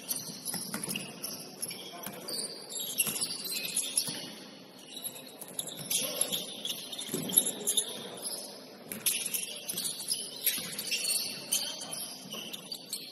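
Basketball shoes squeaking on a gym's hardwood court during play: many short, high-pitched squeaks in quick succession, with scattered sharp knocks.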